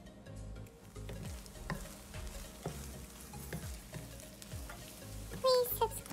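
Wooden spatula stirring and scraping eggs as they sizzle in a nonstick frying pan, with small clicks from the spatula on the pan, over background music with a low beat. A high-pitched voice comes in near the end.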